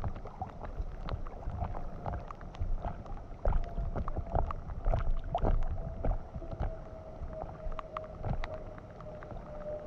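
Water sloshing and gurgling against an inflatable kayak drifting fast down a swollen creek, with a low rumble and scattered sharp ticks of water drops hitting the camera housing. A thin, steady whine starts about two seconds in and slowly drops in pitch.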